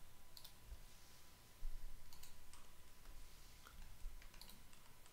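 Faint computer mouse clicks: about half a dozen short, separate clicks spread over a few seconds, over a low steady hum.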